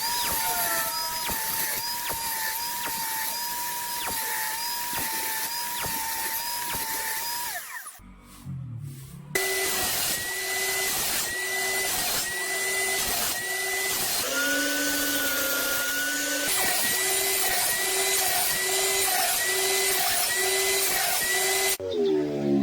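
An electric woodworking power tool running steadily under load, its pitch dipping at an even rhythm. It cuts off abruptly about a third of the way in, restarts at a different pitch, and runs on.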